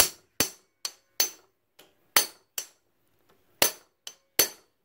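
Hammer striking a punch against a rivet pin of a stock 150 cc motorcycle drive chain: about ten sharp metallic strikes at an uneven pace, with a pause of about a second midway. The pin is staked very tight and will not come out.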